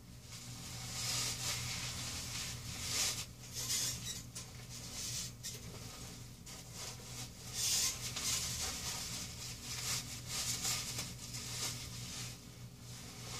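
Rustling and swishing of shiny nylon track pants and jacket as the wearer moves and climbs onto a bed, in irregular bursts, over a steady low hum.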